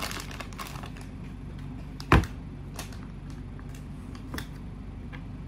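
A small bag being crinkled and worked open, then a single sharp knock about two seconds in, the loudest sound, and a couple of light clicks afterwards.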